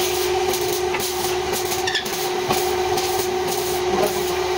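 A machine running steadily, giving an even, pitched drone, with scattered light clicks and knocks over it.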